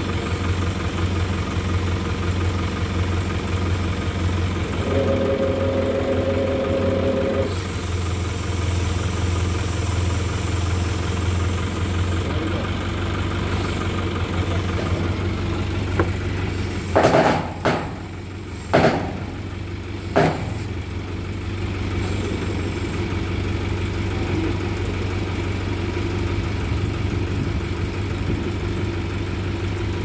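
Crane truck's engine running steadily at idle while its hydraulic crane holds a load, with a brief extra steady hum about five seconds in and a few sharp knocks about two-thirds of the way through.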